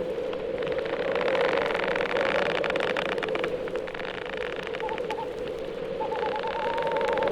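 Spooky sound effects played from a vinyl record: a steady droning hum under a crackly hiss, with a faint wavering whistle coming in about five seconds in and again near the end.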